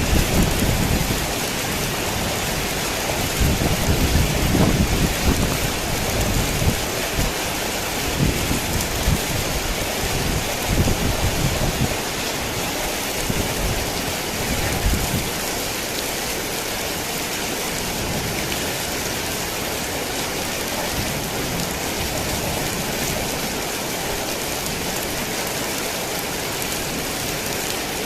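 Heavy rain falling steadily, with low rolling rumbles of thunder through the first half that die away after about fifteen seconds.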